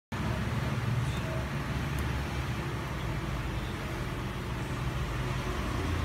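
Steady low rumble and hiss of background noise, with a faint tick about two seconds in.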